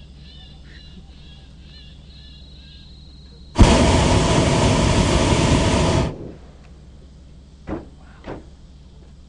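Hot air balloon's propane burner firing in one loud blast of about two and a half seconds that starts sharply, followed by two short blips near the end.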